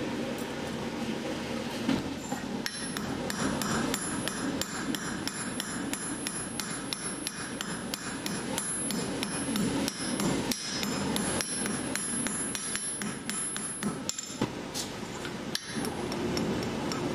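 Blacksmith's hammer striking red-hot steel on an anvil: a steady run of light, ringing blows, about three a second, beginning about two and a half seconds in and stopping near the end.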